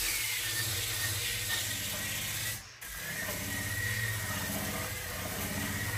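Variable-speed polisher fitted with sandpaper sanding wooden boards: a steady motor whine with the hissing rub of the paper on the wood, cutting out briefly about halfway through.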